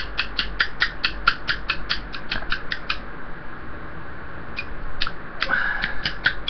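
Small plastic squeeze bottle clicking and crackling as thick pepper puree is forced through its nozzle onto a spoon: a quick, even run of about five or six clicks a second, then a few scattered clicks after a short gap.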